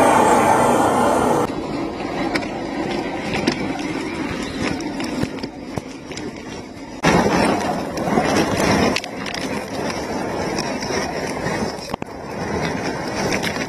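Scale RC rock crawler driving over gravel and rocks: small electric motor and gears whirring, tyres crunching and stones clicking. The sound changes abruptly about a second and a half in, and again about seven seconds in, where it is louder for two seconds.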